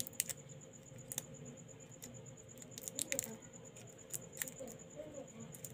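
Scattered light clicks and taps of small plastic phone parts handled between the fingers.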